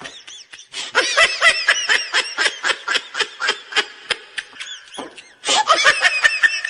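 Laughter in long runs of quick, high-pitched ha-ha pulses, about five a second, breaking off briefly near the start and again about five seconds in.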